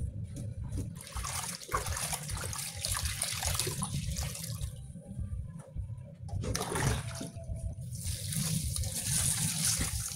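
Water running and splashing into a stainless steel kitchen sink as a pot is washed and rinsed under the tap. It comes in two long spells, starting about a second in and again just after the middle, with a short lull between.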